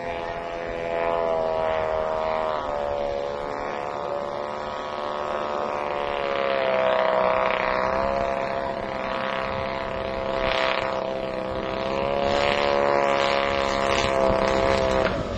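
Engines of a radio-controlled scale Dornier Do 335 model, a front and rear push-pull pair, drone steadily as the model flies past and comes in to land. The pitch wavers a little, and the sound cuts off suddenly near the end.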